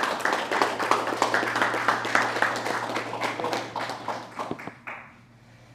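Small audience applauding with hand claps, thinning out and stopping about four and a half seconds in.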